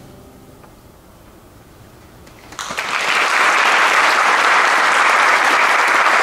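The last chord of a grand piano fades away, then an audience bursts into applause about two and a half seconds in, steady to the end.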